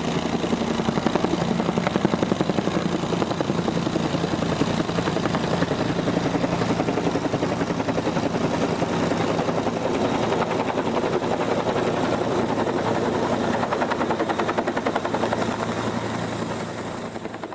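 Helicopter rotor beating fast and steady, with a thin high whine over it, easing off slightly near the end.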